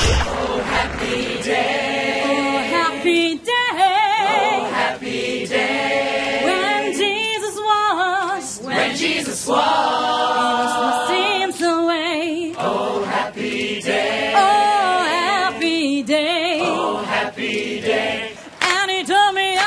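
Youth choir of mixed voices singing a cappella, in phrases of a few seconds with short breaks between them.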